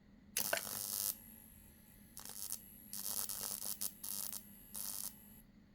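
Microwave oven transformer run from a small UPS, buzzing in five short, crackly bursts as power is switched on and cut again. The overloaded UPS drops its voltage under the transformer's draw of around 6 amps.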